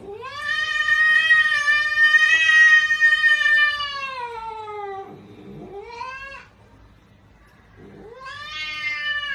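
Domestic cat yowling: one long drawn-out yowl that sags in pitch at its end, a short rising call, then another long yowl starting near the end.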